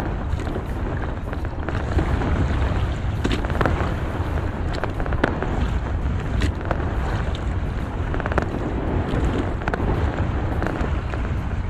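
Wet fishing net being hauled by hand into a small boat: water spattering and the mesh rustling, with many short sharp crackles and snaps, over a steady low rumble.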